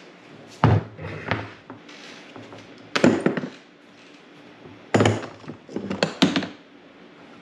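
Black hard plastic carrying case being set down on a wooden table and opened: a few sharp knocks and clacks, one about a second in, another about three seconds in, then a cluster near the end as the latches are undone and the lid lifts.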